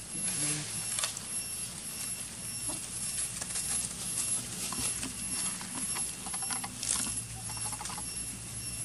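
Macaques moving over dry leaves and grass: scattered rustling and light clicks over a faint steady hum, with a quick run of clicks near the end.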